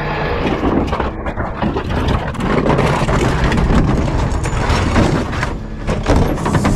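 Garbage truck running, with a low rumble under steady rattling and clanking knocks.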